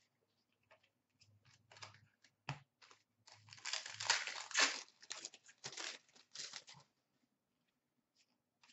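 Foil wrapper of a hockey trading-card pack crinkling and tearing as it is opened by hand and the cards are slid out. Quiet short rustles that are loudest about four seconds in and stop about seven seconds in.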